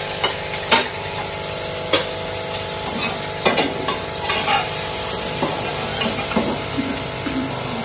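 Chopped bitter gourd (karela) sizzling as it fries in a stainless steel pan, stirred with a metal slotted spoon that clinks and scrapes against the pan at irregular moments.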